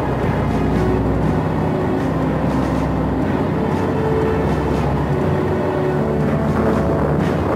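Steady drone of bomber aircraft engines with a low rumble, under sustained notes of background music.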